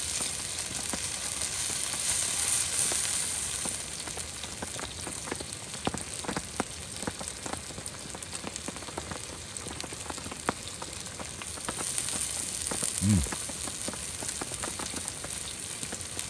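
Seseri (chicken neck meat) sizzling on a black griddle pan over a portable gas stove: a steady frying hiss with scattered small pops, louder in the first few seconds. A brief low hum sounds near the end.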